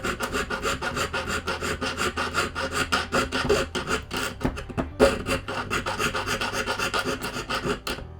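Jeweler's saw cutting through the seam of a metal ring band with quick back-and-forth rasping strokes, several a second.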